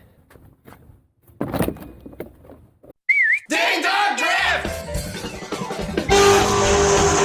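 Music coming in: a short warbling whistle-like tone about three seconds in, then voice-like sounds over the music. The full backing track kicks in, louder, about six seconds in. Before that there are only faint scattered knocks.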